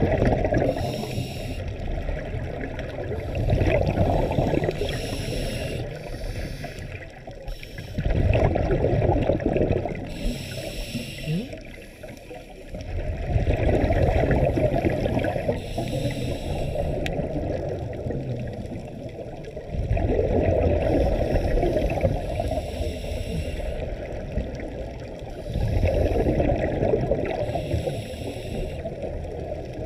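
Scuba divers breathing through their regulators, heard underwater: exhaled bubbles gurgle out in surges every four to six seconds, with quieter stretches between.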